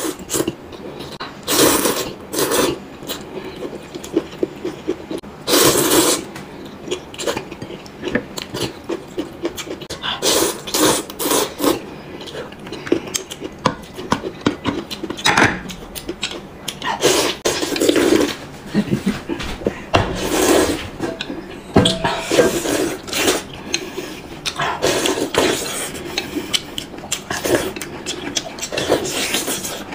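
Close-miked eating sounds in irregular bursts: noodles being slurped, chewing, and broth sipped from a bowl.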